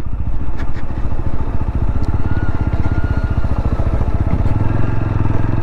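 TVS Apache RTR 200's single-cylinder engine running steadily as the motorcycle is ridden along the road.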